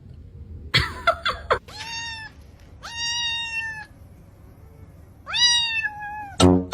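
A domestic cat meowing three times in drawn-out calls, each rising at the start and then held, the middle one the longest. A short burst of sharp, scuffling noises comes about a second in.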